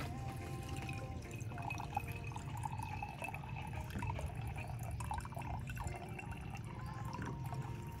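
Water pouring from a plastic jerry can into the bottom chamber of a moka pot, splashing and trickling, over a steady low rumble.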